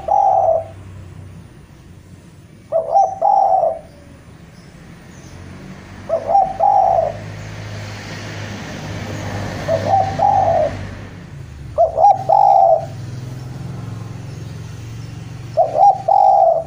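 Spotted dove (Javan derkuku) calling: a repeated coo phrase, a couple of short notes running into a longer one, about every three seconds. It is a male's territorial call aimed at rivals.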